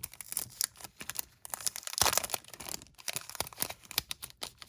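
Packaging crinkling and tearing as a packet is opened by hand: quick irregular crackles throughout, densest and loudest about two seconds in.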